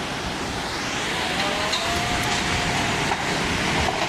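Floodwater rushing through a city street: a steady, dense rushing noise, with a faint high tone held for a couple of seconds in the middle.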